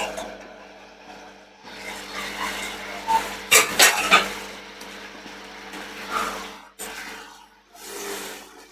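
Kitchen utensil scraping and stirring in a cooking pan, uneven and rasping, with a few sharp clacks about three and a half to four seconds in, over a steady hum.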